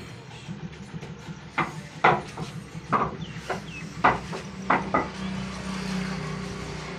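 Several sharp wooden knocks and clacks, the sound of a rolling pin working dough on a wooden board, over a low steady hum.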